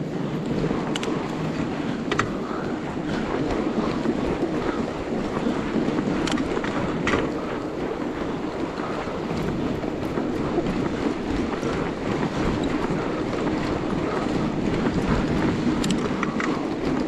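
Fat bike ridden over snow while towing a two-roller trail groomer: a steady rumbling noise of tyres and rollers on the snow, with wind on the microphone. A few sharp clicks stand out now and then.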